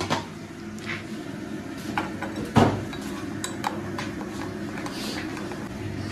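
Metal spoon clinking against a ceramic mug while a drink is stirred: a handful of separate clinks, the loudest about two and a half seconds in, over a steady low hum.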